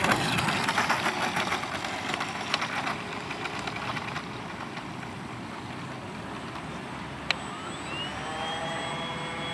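Radio-controlled Mirage 2000 model jet: a loud rushing, crackling hiss at the start that fades over about four seconds, then steady engine noise with a single sharp click about seven seconds in, and the jet's whine rising in pitch again near the end.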